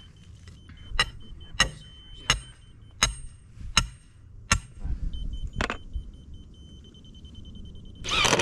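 Hammer blows on the wooden slab form and its stakes: seven sharp strikes at an even pace, about one every 0.7 s. Near the end a power tool starts up loudly and keeps running.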